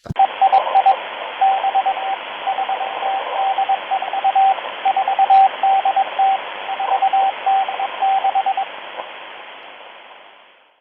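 Shortwave radio receiving a Morse code number station, MC03: a single steady beep keyed in dots and dashes over a bed of hissing static. The keying stops near the end, and the static then fades out.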